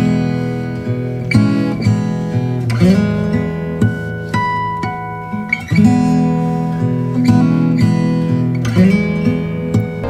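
Background music on acoustic guitar: plucked and strummed chords ringing out one after another.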